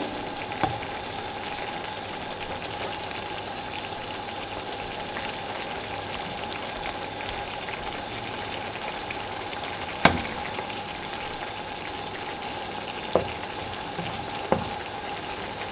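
Meatballs in tomato sauce bubbling and sizzling in a frying pan: a steady hiss with a faint steady tone under it. A wooden spatula knocks against the pan a few times, once about ten seconds in and twice near the end.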